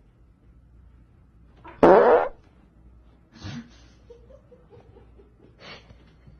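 A single short, loud fart-like blurt about two seconds in, followed by a few faint rustles.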